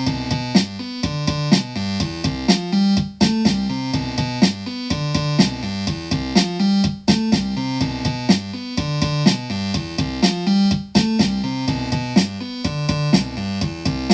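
Outro music: an upbeat keyboard/synthesizer tune with a steady beat.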